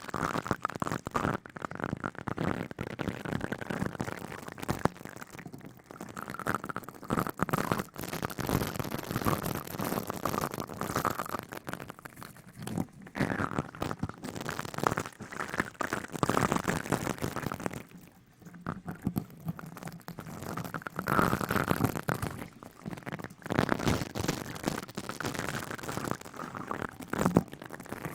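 Close-up crackly rustling and scratching, swelling and fading in waves, with a short lull about eighteen seconds in.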